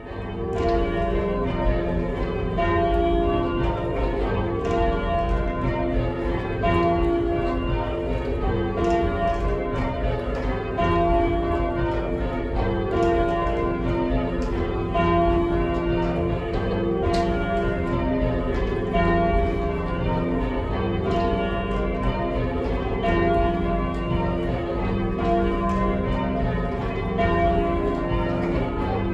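Cathedral tower bells rung full-circle in English change ringing, heard from the ringing chamber below: a steady, unbroken sequence of strikes, one bell after another, their tones overlapping and ringing on.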